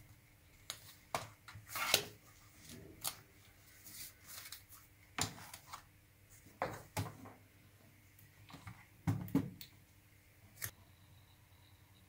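Quiet handling noise: scattered clicks, taps and short rustles as a spiral notebook and other objects are moved about on a wooden desk, the stronger knocks about two seconds in and again near the nine-second mark.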